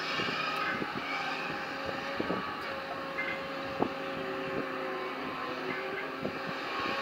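Liebherr R944 crawler excavator working in clay: the diesel engine running steadily under load with a held whine over it, and a few sharp knocks as the bucket digs, the loudest about four seconds in.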